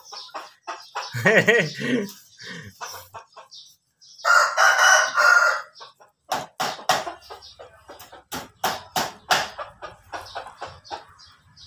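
A rooster crows once, about four seconds in, after a brief call near the start. Then puppies lick and smack at an ice-cream bar, a quick irregular run of wet clicks.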